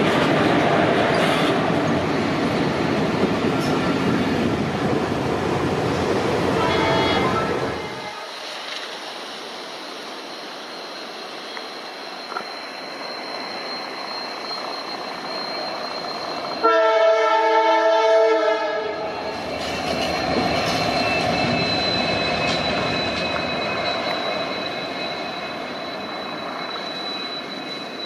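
Locomotive running light on the rails, a loud rumble that drops away suddenly about eight seconds in. After a quieter stretch comes one air-horn blast of about two seconds, then more running rumble with a thin steady high whine.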